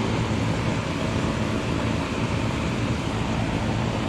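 2004 Tempstar 4-ton central air-conditioner condensing unit running steadily: a low hum under the even rush of its outdoor fan.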